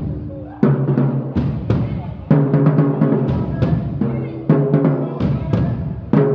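Marching band brass and drums playing a short loud phrase over and over, each time starting with a sudden full-band hit, four times.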